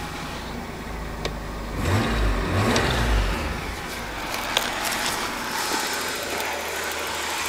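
Holden VP Commodore engine idling just after being started, revved briefly a couple of times about two seconds in, then settling back to a quiet, steady idle.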